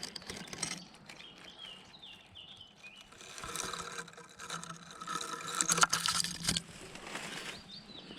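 Rustling and crackling of gorse and thorn branches being pushed through and handled close to the microphone, in two bouts with a couple of sharp snaps. A small songbird calls a few short notes between them.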